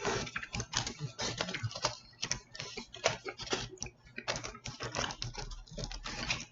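Close-miked eating of a burrito: chewing and mouth noises as a stream of irregular small clicks and crackles.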